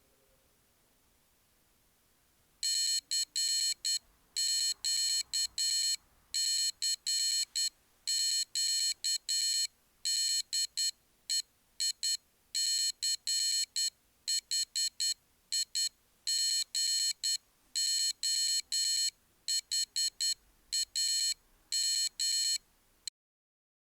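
Morse code beeped out by the IchigoJam computer's sounder: a buzzy electronic tone keyed on and off in short and long beeps, starting a couple of seconds in and cutting off abruptly near the end.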